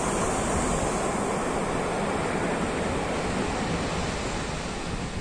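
Sea surf washing onto a sandy beach: a steady rushing noise that eases off slightly near the end.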